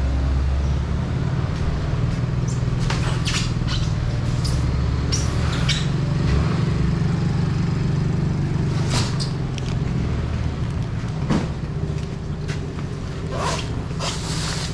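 Steady low motor hum throughout, with scattered short knocks and scrapes as cardboard boxes are lifted off a truck bed and set down.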